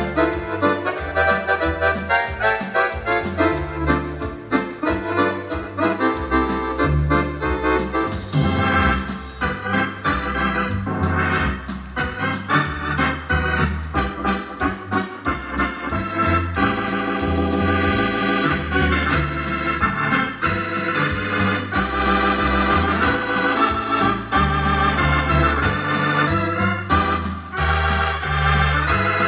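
Wersi electronic organ played across two manuals, with a sustained bass line under a steady beat. About halfway through the sound changes, as the player switches registration on the panel.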